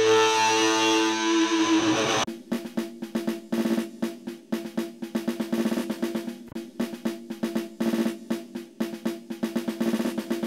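Background music: held electric-guitar chords, then from about two seconds in a fast, even drum pattern over a steady low note.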